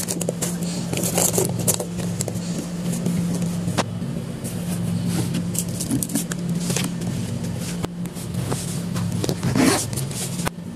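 Lunch boxes and bags being handled and packed: fabric rustling, clicks and scrapes of containers, and a zipper pulled about nine and a half seconds in, over a steady low hum.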